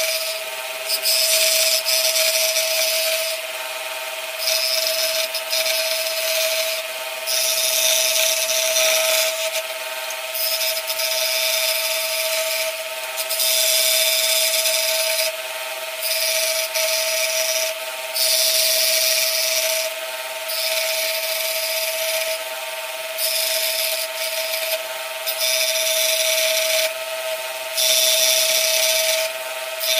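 Benchtop scroll saw running with a steady motor hum, its blade cutting slots in 9 mm plywood. The rasping cut comes in repeated passes of one to three seconds each and drops back to the hum between them.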